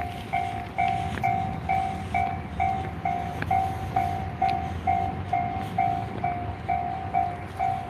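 Japanese level-crossing warning bell ringing, a steady repeating ding about twice a second, over the low rumble of a passing train.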